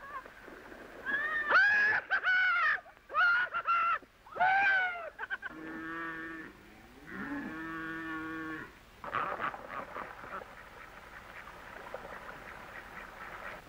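Animal calls: several short, high cries that rise and fall, then two long, lower lowing calls, then a brief rustle.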